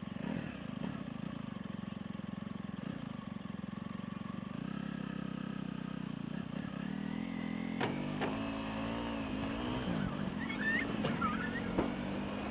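A motor vehicle's engine running steadily, its pitch shifting a few times as it speeds up and slows.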